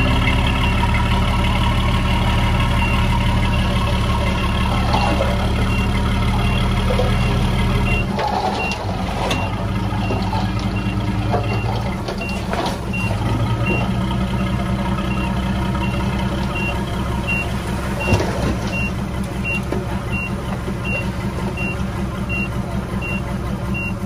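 Diesel engines of a Komatsu D20A bulldozer and a dump truck running under work, the engine note changing about eight seconds in, with a reversing alarm beeping steadily at a high pitch from a few seconds in. A few brief knocks stand out, the sharpest about eighteen seconds in.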